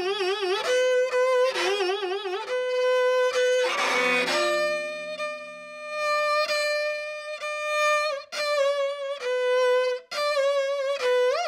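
So-ajaeng, the small eight-string Korean bowed zither, bowed in a sanjo solo. It plays held notes with a deep, wavering vibrato and bends and slides in pitch as the left hand presses the strings. There is a long steady note in the middle and brief breaks between phrases near the end.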